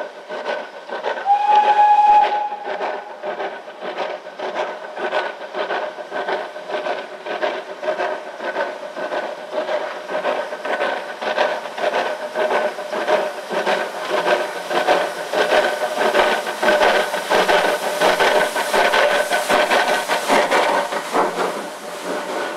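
Steam locomotive working hard as it approaches and passes, an even chuffing exhaust beat that grows louder, with one short whistle blast about a second in.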